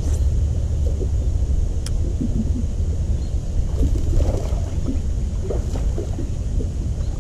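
Wind buffeting the camera microphone in a steady low rumble, with faint irregular water sounds and one sharp click about two seconds in.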